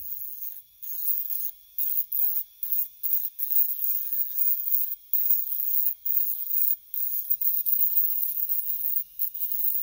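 Dremel-type rotary tool spinning a sanding drum against cured epoxy resin on an aluminium dynamo housing: a high whine with a gritty sanding hiss, coming in about a second in and dropping out briefly many times.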